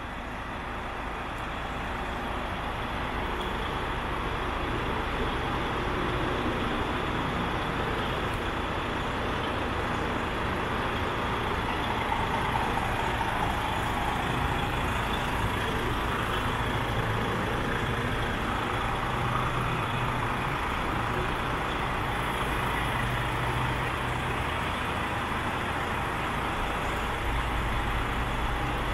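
DAF CF85's PACCAR 460 bhp turbo diesel, a straight-six, idling steadily, with a low hum under an even mechanical noise.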